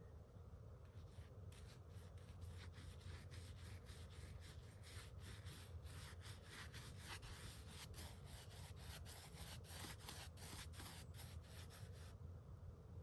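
Paintbrush scrubbing latex paint into the sawn end grain of a cedar log to seal it against checking: faint, quick, repeated brush strokes that start about a second in and stop near the end.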